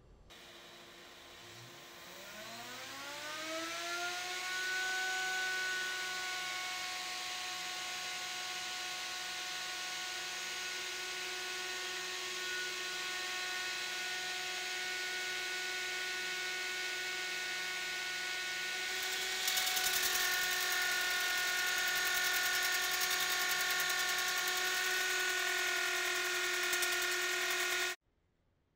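Router motor on a shop-made lathe duplicator spinning up with a rising whine that settles into a steady high whine at full speed. About two-thirds of the way through, a louder, rougher noise joins it. The sound cuts off suddenly just before the end.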